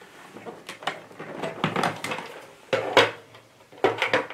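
Clicks and knocks of hard plastic and metal parts being handled on a Bernina sewing machine as it is taken apart for lint cleaning, with its white plastic accessory box lifted off and set down. The loudest knock comes about three seconds in.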